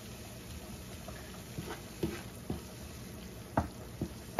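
Wooden spoon stirring pancetta, onion and tomato in a nonstick frying pan, with several light knocks of the spoon against the pan over a faint steady sizzle of the mixture frying in the pancetta's rendered fat.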